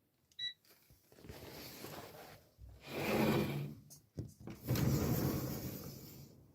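Sliding balcony door rolling open, a rushing, rumbling noise in two swells, with a short click and brief ringing blip near the start.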